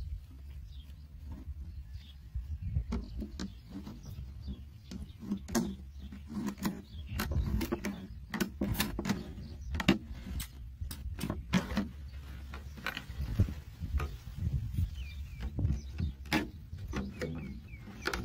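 Irregular clicks, knocks and rustles from a handheld camera being carried while walking over grass, over a steady low rumble of wind on the microphone; a few short high chirps come in near the end.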